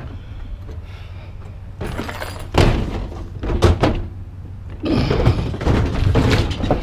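Thuds and knocks of a light, hollow appliance being lifted and pushed onto a pickup truck bed. A brief rattle comes about two seconds in, then a couple of hard knocks, then a longer stretch of scraping and knocking near the end.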